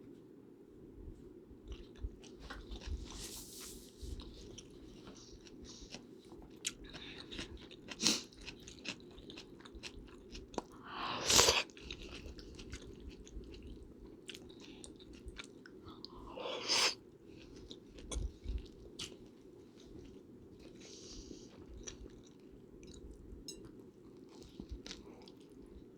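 Close-miked eating: chewing with many small mouth clicks, and two louder noisy sounds about a second long, around 11 and 17 seconds in, over a steady low background hiss.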